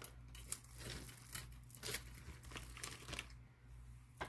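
Crinkly packaging being handled, a quick run of short crackles and rustles that dies away about three seconds in, with one more tick near the end.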